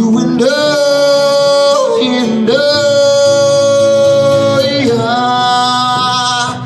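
Live male vocalist singing three long held notes into a microphone, the middle one the longest, over his own acoustic guitar.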